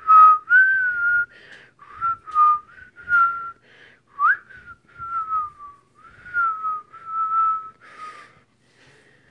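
A person whistling a tune: a string of held notes around one pitch, some sliding down, with one quick upward slide about four seconds in and a breathy edge at the note starts.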